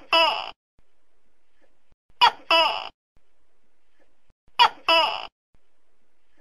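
Tokay gecko calling its two-syllable 'to-kay' call three times, about two and a half seconds apart. Each call is a short sharp note followed by a longer second syllable.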